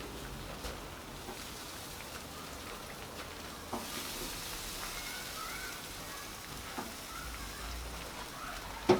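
Chops sizzling on a barbecue grill with rain falling, a steady hiss that grows brighter about four seconds in. A few light knocks come through it, the loudest just before the end.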